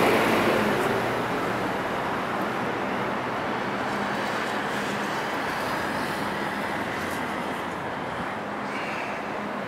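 City road traffic: a loud vehicle passing close fades away over about the first second, leaving a steady wash of traffic noise.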